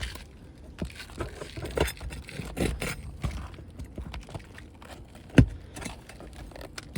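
A tool scraping under asphalt roof shingles as a leftover roofing nail is worked out, with scattered clicks and scrapes and one sharp knock about five and a half seconds in.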